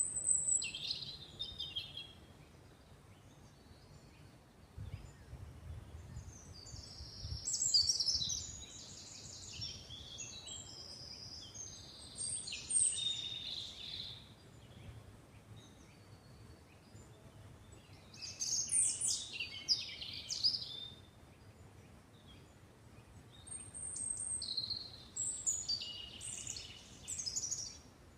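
Songbirds singing in four bouts of quick, varied high notes with pauses of a few seconds between them, over a faint low rumble.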